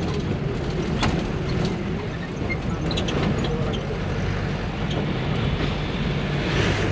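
Diesel bus engine running steadily under way, with road and tyre noise and a few short knocks and rattles, heard from inside the bus.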